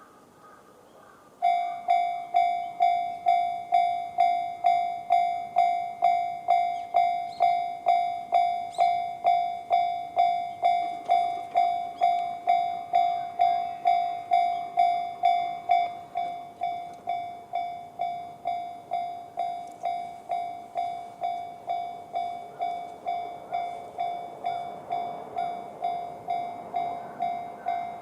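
Japanese railway level-crossing warning alarm sounding the JR standard electronic tone: a ringing ding repeated about twice a second, starting about a second and a half in and becoming quieter about halfway through. Near the end the rising noise of an approaching train joins it.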